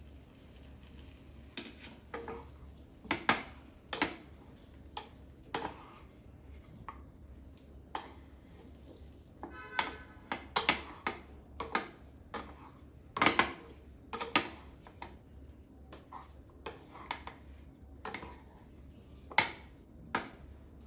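Kitchen utensils clinking and knocking against dishes and pans: irregular sharp strikes, some ringing briefly, with one pitched ping about ten seconds in.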